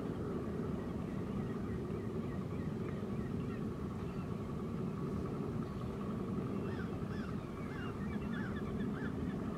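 Geese honking in a quick repeated series that begins about two-thirds of the way through, over a steady low rumble.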